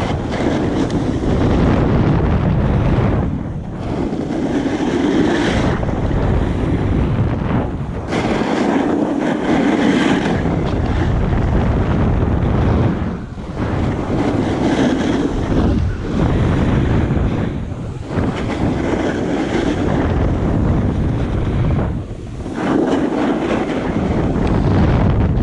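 Wind buffeting the action camera's microphone during a fast descent of a groomed snow slope, with ski or board edges scraping and hissing over packed snow. The noise swells and dips every few seconds with the turns.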